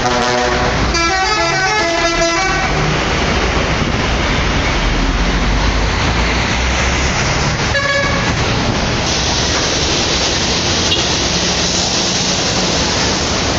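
Telolet horn of a Garuda Mas super-high-deck bus playing its quick multi-note melody for the first two or three seconds, then one short horn note about eight seconds in, over loud steady road noise.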